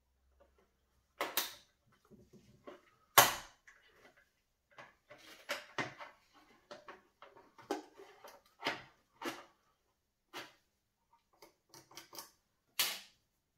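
Irregular clicks and knocks of an electric chainsaw's plastic housing being pried and handled with a plastic pry tool, the sharpest knocks about three seconds in and near the end.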